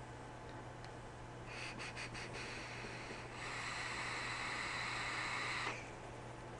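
A long drag on an Altus coilless vape tank: air and vapour drawn through the atomizer make a steady airy hiss for about two and a half seconds, which cuts off suddenly. A few short hissy puffs come about a second and a half in, before the main draw.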